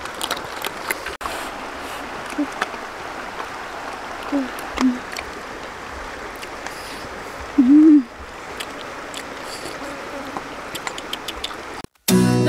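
Steady rush of running stream water, with scattered sharp clicks and a few short, low calls; the loudest call comes about eight seconds in. The sound cuts off suddenly just before the end.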